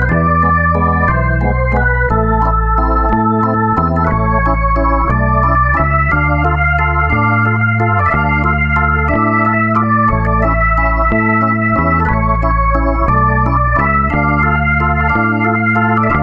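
Background music played on an organ-like electronic keyboard: held chords over a bass line that changes note about every second.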